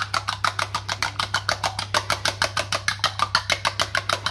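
A fork whisking a raw egg in a bowl, tapping the bowl rapidly and evenly at about eight strokes a second.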